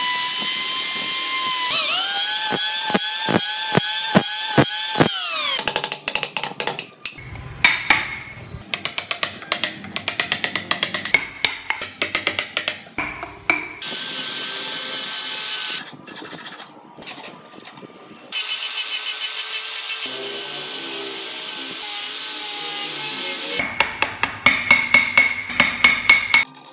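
Angle grinder shaping a block of wood. Its motor whine rises near the start and dies away after about five seconds. Then steady stretches of grinding and sanding alternate with runs of rapid clicking and scraping from chisel cuts.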